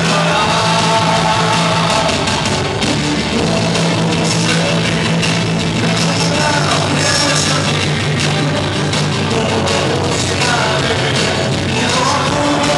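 A man singing into a microphone over loud rock music.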